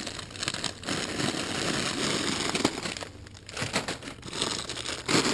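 Foil snack-chip bags and a plastic trash bag crinkling as they are handled and pulled out of the bag, with a short pause about three seconds in.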